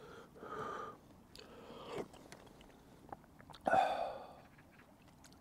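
A person eating udon noodles: quiet chewing and slurping with small mouth clicks, and a louder breathy sound about three and a half seconds in.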